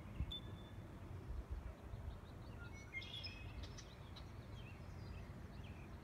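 Wind buffeting the microphone in a low, gusty rumble, with small birds chirping over it, most busily about halfway through.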